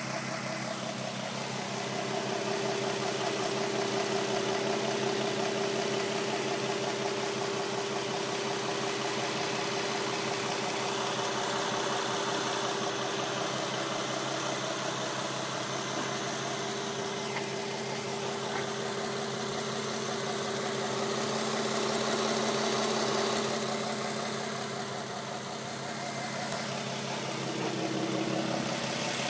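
2007 Nissan 350Z's 3.5-litre V6 idling steadily in the engine bay, with an odd tick from the engine that the owner cannot place.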